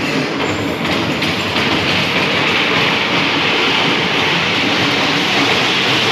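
Electric bumper car running across a metal-plated floor: a steady rolling rumble with a hiss over it.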